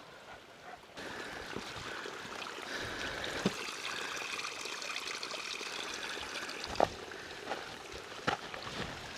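Steady rush of running water, like a small stream, growing louder about a second in, with a few sharp knocks about three and a half, seven and eight seconds in.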